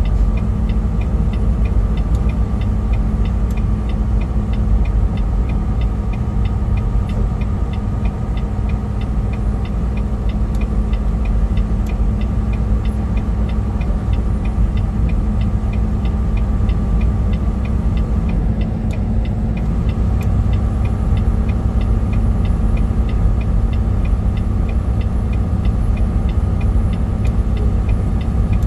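Steady engine and road rumble inside a semi-truck cab driving on a snowy highway, with a fast, even light ticking running over it.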